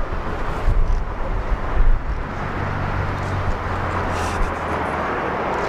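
Wind buffeting the microphone in gusts for the first two seconds, then the steady rushing noise of an approaching jet airliner's engines, slowly growing louder.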